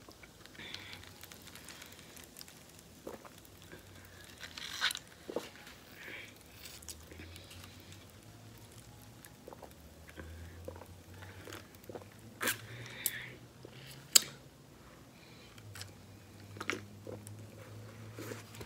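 A person eating off a styrofoam plate held to the mouth: quiet chewing and mouth sounds with scattered small clicks, and a few louder sharp clicks about five, twelve and fourteen seconds in.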